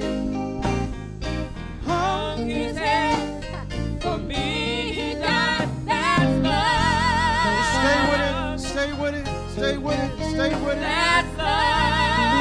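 Gospel worship music: singing with heavy vibrato over instrumental accompaniment with a sustained bass.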